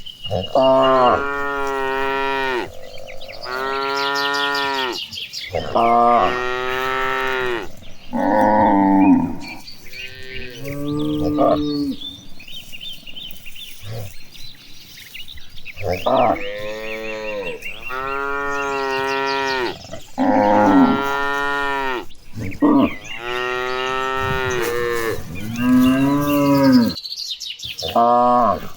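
Cattle mooing again and again, one long rising-and-falling call after another with short gaps between, several animals calling in turn. The calls thin out briefly a little before the middle, then resume.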